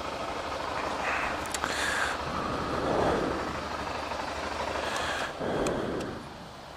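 Motorcycle engine running at low speed as the bike rolls slowly; the engine sound swells a few times and drops quieter near the end.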